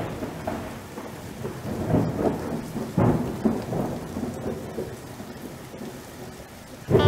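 Thunderstorm: steady rain with rolling thunder, the loudest claps about two and three seconds in, the rumbles dying down toward the end.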